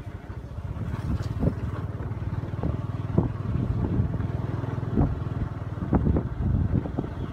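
Small motorcycle engine running at low speed, with a steady low hum and a few thumps, typical of riding over a rough dirt road.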